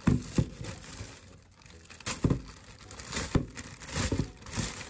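Plastic poly mailer bag crinkling and being torn open by hand, an irregular rustle with several louder sharp crackles.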